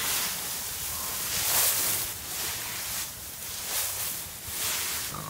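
Dry fallen leaves rustling and crackling as they are scooped up and dropped in handfuls onto a person, in repeated bursts about once a second.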